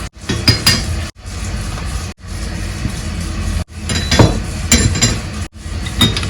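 Metal and glass kitchen items clinking and knocking as stove parts are handled during cleaning, over a steady rushing noise, in short segments that cut off abruptly several times.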